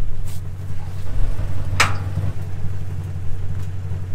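Large truck engine idling steadily in a low, even drone. About two seconds in there is one sharp metallic clank with a brief ring as a tow strap's hook is fitted to a stuck pickup's rear.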